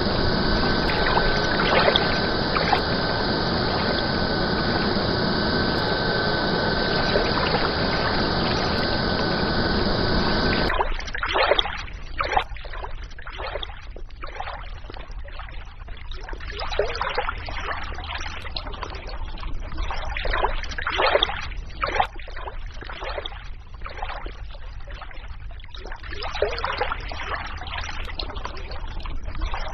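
A steady rushing noise with a thin, steady high tone runs for about ten seconds and then cuts off suddenly. After that, a stream trickles and splashes unevenly.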